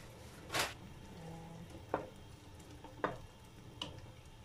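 A pot of vegetables and pasta on the boil, with a steady hiss, as a wooden spoon stirs it and knocks three times against the stainless steel pot. A short rush of noise comes about half a second in.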